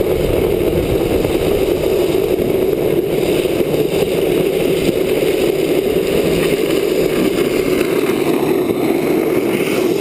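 Steady rush of wind and wheel noise from a drift trike rolling at speed on a wet road, unbroken throughout.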